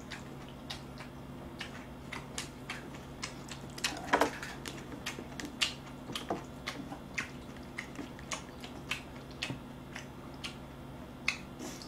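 Close-miked eating sounds: chopsticks and a spoon clicking and scraping against a bowl while stirring and serving saucy braised monkfish with bean sprouts, mixed with mouth and chewing noises. The irregular small clicks run throughout, with a louder cluster about four seconds in.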